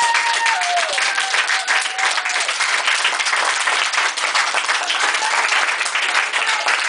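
An audience applauding steadily in a small room. Over the first two seconds or so a voice holds a long note that slides down in steps and fades out under the clapping.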